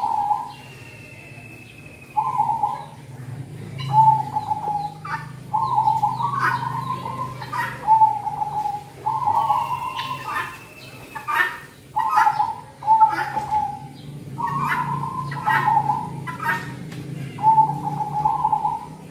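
Zebra dove (perkutut) cooing. It gives phrase after phrase of quick, staccato coos, each phrase about a second long, with short gaps between them.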